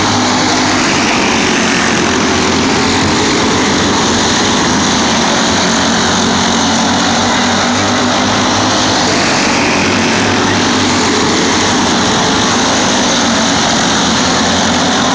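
A field of racing karts' small engines running together at race speed: a loud, steady mix of engine noise as the pack circles the track.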